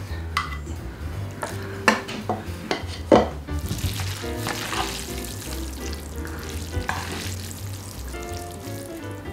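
Chopsticks tossing and stirring sauce-coated spicy bibim noodles in a metal bowl, a wet, sticky, crackling mixing sound. A few sharp clicks of chopsticks against the bowl come in the first three seconds.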